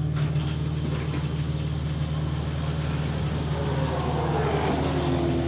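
Gen3 Supercar V8 engines running: a steady low engine note throughout, joined in the last two seconds by a higher engine note falling steadily in pitch.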